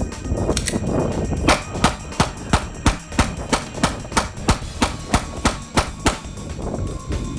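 Glock 22 .40-calibre pistol fired in a rapid, steady string of about sixteen shots, roughly three a second, stopping about six seconds in.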